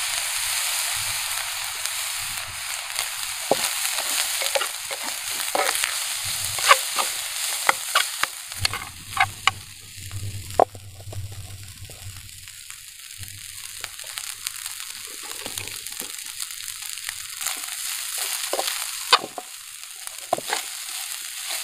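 Fried rice sizzling in a hot pan while it is stirred, with frequent sharp knocks and scrapes of the utensil against the pan; the rice is being fried until dry. The sizzle is strongest at first and eases off in the second half.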